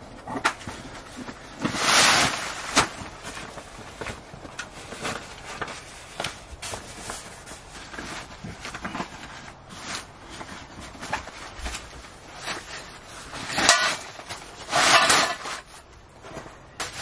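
Handling noises of a folding camp cot being taken out of its bag and unfolded: scattered clicks and knocks of its frame, with louder swishes of fabric about two seconds in and again near the end.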